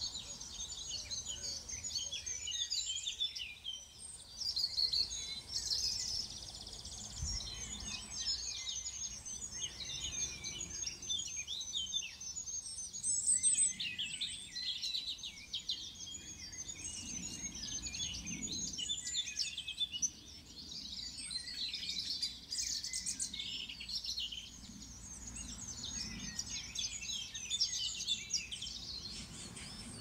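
Dense chorus of small songbirds chirping and twittering continuously, many short high calls overlapping.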